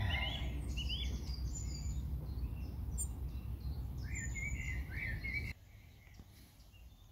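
Small birds chirping and singing over a steady low wind rumble on the microphone. The sound drops away abruptly about five and a half seconds in, leaving a much quieter background.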